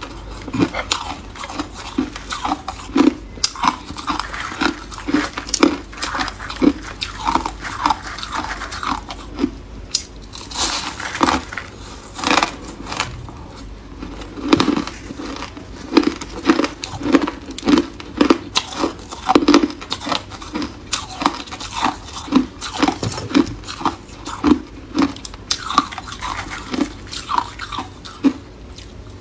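A person chewing mouthfuls of soft, crushed freezer-frost ice, making a steady run of crisp crunches about two a second.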